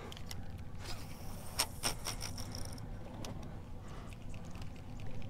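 Spinning reel, a Daiwa Saltist MQ2500, being cranked to retrieve a metal jig fast, with scattered soft clicks and creaks. A brief thin high whine comes a little after a second and a half, over a low steady hiss.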